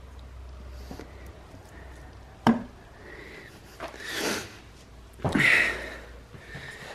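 Handling sounds as a rotor is seated onto the eccentric shaft of a Mazda 13B rotary engine: one sharp click about two and a half seconds in, then two short hissing rustles.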